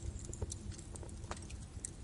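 Birch wood fire burning in a fireplace: irregular crackles and small pops over a low steady rumble of the flames, with a sharper pop just past the middle.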